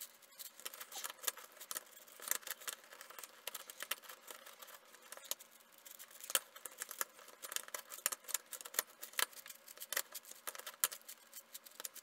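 ShengShou 9x9 puzzle cube being scrambled by hand: quick, irregular clicking and clacking of its plastic layers as they are turned.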